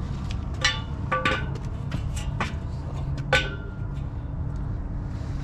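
Metal clanking: about five sharp knocks of steel pieces against each other, each ringing briefly, the loudest a little over three seconds in. A steady low rumble runs underneath.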